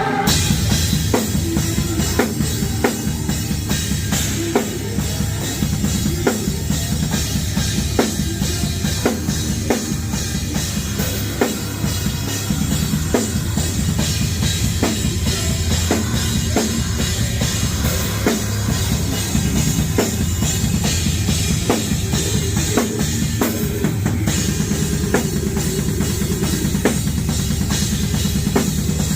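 Drum kit played live in a metal set, heard close from the kit: rapid, driving bass drum under regular snare hits and a steady wash of cymbals.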